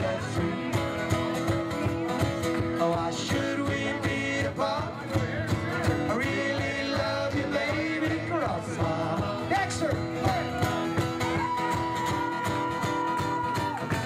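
Live country-style band music: strummed acoustic guitars with a singing voice.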